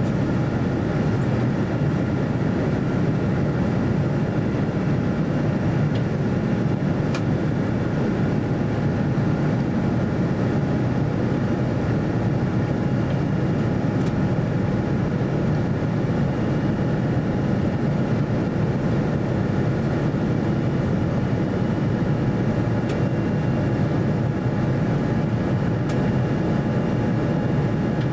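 Steady in-flight cabin noise of an Airbus A350-900: a low, even drone of its Rolls-Royce Trent XWB engines and rushing air along the fuselage, with faint steady tones above it.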